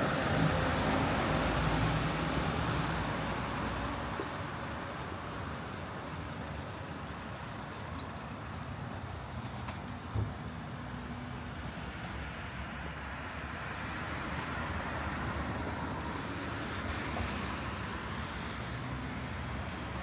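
Road traffic going by: a vehicle passes close at the start and fades away over a few seconds, leaving a steady wash of traffic noise. Another vehicle swells up and passes later on, and there is a single short knock about halfway through.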